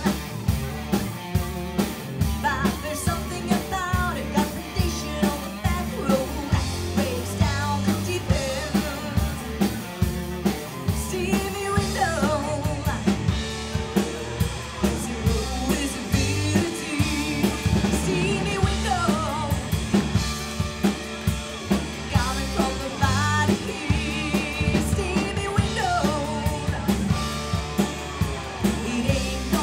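Live rock band playing, with a drum kit keeping a steady beat under a full band and a singing voice.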